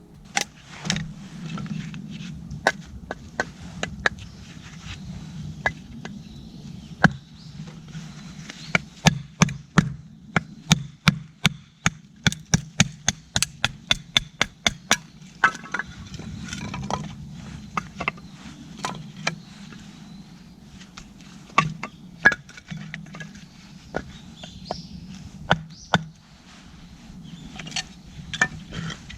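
Repeated sharp chopping knocks on wood, a quick run of about three strikes a second in the middle, with scattered single strikes before and after.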